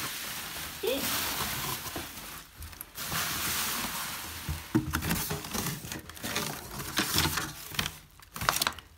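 Bubble wrap crinkling and rustling as it is pulled out of a delivery box, then the box's cardboard flaps and inner cardboard rustling and scraping with small sharp crackles as they are handled.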